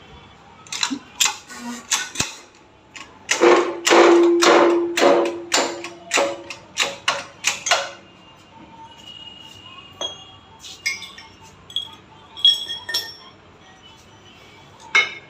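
Hammer blows on metal during two-wheeler connecting rod work: a quick run of sharp strikes, with the metal ringing under several of them. Lighter metal clinks of tools and parts follow.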